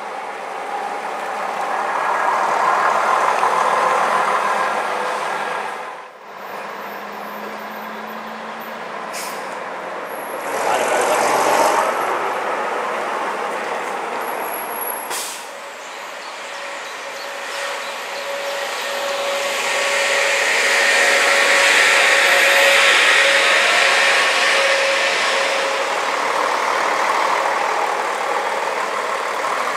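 Diesel buses and coaches driving past one after another, each engine growing louder and then fading away, with a burst of air-brake hiss among them.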